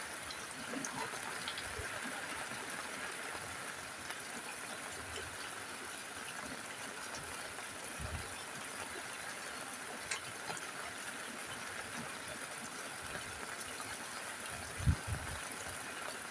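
Steady rain falling on a roof, a constant hiss with a few heavier drops landing as dull thuds now and then; the loudest thud comes near the end.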